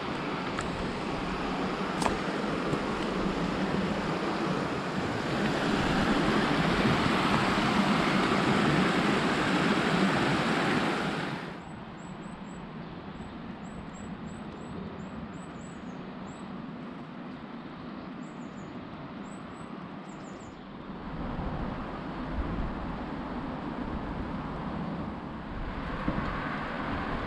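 Shallow river water rushing over stones, growing louder, then cutting off abruptly about eleven seconds in. A quieter stretch follows with small birds chirping, and from about twenty seconds in road traffic rumbles on the viaduct overhead.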